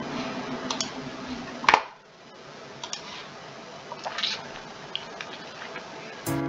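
Scattered clicks and handling noise over room noise, the loudest click about one and a half seconds in. Near the end, a karaoke backing track starts with held chords.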